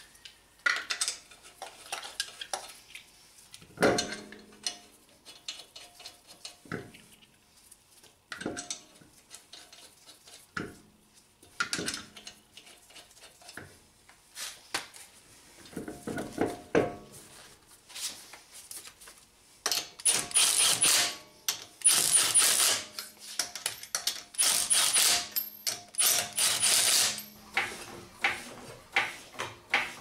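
Metallic clinks and knocks as a wheel is hung on the hub and its lug nuts are started, then a cordless impact wrench runs in about five short bursts of around a second each, about two-thirds of the way through, snugging the lug nuts down before the car is lowered.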